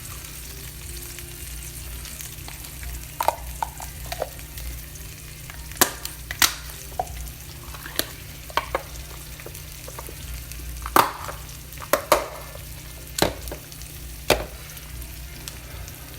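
Egg-white omelet sizzling steadily in a frying pan, with about a dozen sharp knocks and clicks of a utensil against the pan as the omelet is cut into pieces.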